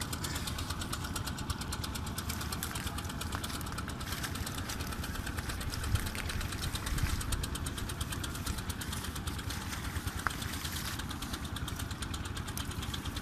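An engine running steadily in the background, with a low rumble.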